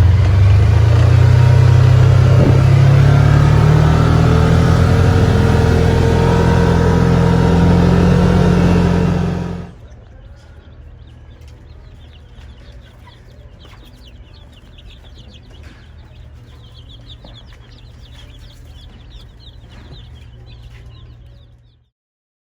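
A motor vehicle's engine running, its pitch rising near the start and then holding steady, until it cuts off abruptly about ten seconds in. After that there is a quieter steady low hum with faint high chirps, and then the sound stops.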